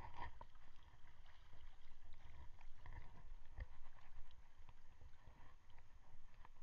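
Shallow seawater splashing and lapping, with a brief splash at the start as a hand dips into the water and scattered small splashes and clicks after it, over a low, uneven rumble.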